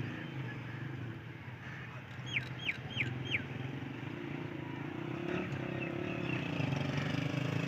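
Distant GE U40 diesel-electric locomotive's engine running with a low, steady drone that grows gradually louder as the train approaches slowly. A bird gives four quick falling chirps about two and a half to three and a half seconds in.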